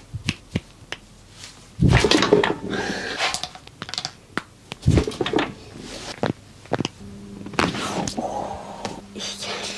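Chiropractic adjustment session: a few short, sharp clicks of joints cracking in the first second, then bursts of rustling noise as hands work over the body and clothing. A steady low hum comes in for the last few seconds.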